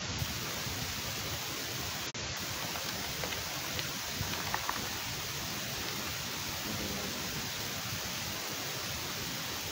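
Steady rushing outdoor seafront noise from wind and sea, with a very brief dropout about two seconds in and a few faint short high sounds around the middle.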